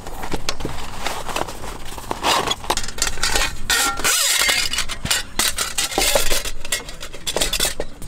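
Aluminium camp-stove parts being handled and fitted together, a gas burner and its hose going into the windshield and pot stand: many light metal clinks, knocks and scrapes, with a fabric stuff sack rustling.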